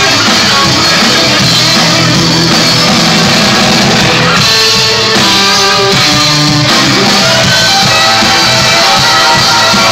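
Live band playing loudly, heard from the audience in a bar.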